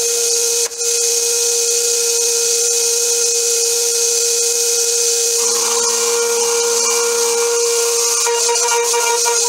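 Home-built CNC mill's spindle whining at one steady pitch with a constant hiss as a small end mill cuts an aluminium part. The cutting sound grows heavier for a couple of seconds past the middle.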